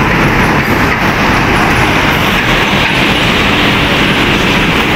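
Sinotruk HOWO diesel tractor-trailer driving past close by: a loud, steady rumble of engine and tyres as the flatbed trailer rolls past.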